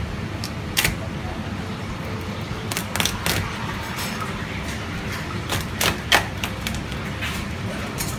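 Chef's knife cracking through a raw spiny lobster's shell: sharp cracks and clicks about a second in, in a cluster around three seconds, again around six seconds and once near the end, over a steady low hum.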